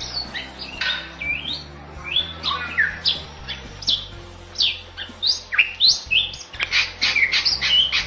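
Bali myna singing: a fast run of short whistled and chattering notes, most sliding down in pitch, coming thicker in the second half.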